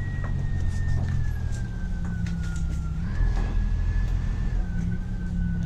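Vintage Routemaster double-decker bus's diesel engine running steadily at low speed, heard from on board. A thin high whine rides over the engine rumble, slowly falling in pitch and stepping up once about three seconds in.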